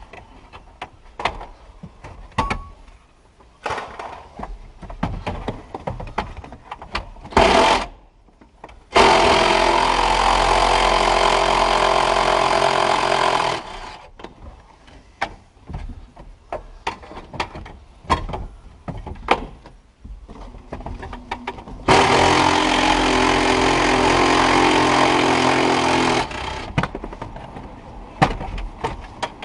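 A power tool running in two steady spells of about four seconds each, one about nine seconds in and one about twenty-two seconds in, with a short burst just before the first. Between them, hand tools and dash parts click and knock as the dash of a Ford F-150 is taken apart.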